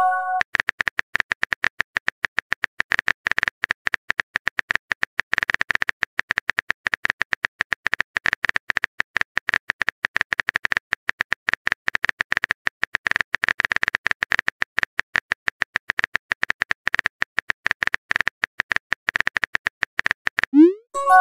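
Rapid typing clicks from a texting app's on-screen keyboard as a long message is entered. It opens with the tail of a short chime, and near the end a rising swoosh and a short chime sound as the message is sent.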